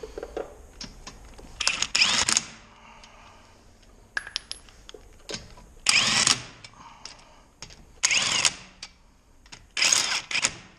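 Lug nuts being run onto a wheel's studs with a spinning tool in four short, loud bursts, with small metal clicks and taps between them.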